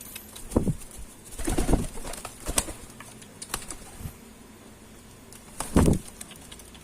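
Domestic pigeons cooing in courtship: low coos about half a second in, again near two seconds and near six seconds, with a few short clicks in between.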